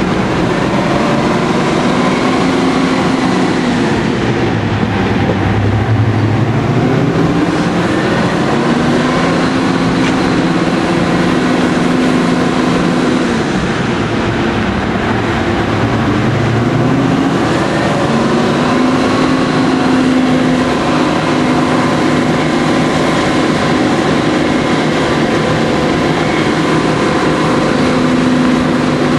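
Class 55 Deltic locomotive's Napier Deltic engines working hard on a climb, the engine note repeatedly sagging and then climbing back up as the locomotive fights for grip on wet rails.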